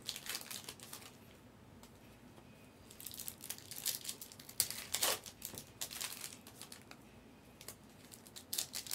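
Foil trading-card pack wrapper crinkling and tearing as the pack is handled and ripped open. The crackling comes in irregular bouts, near the start, through the middle and again near the end, with quieter gaps between.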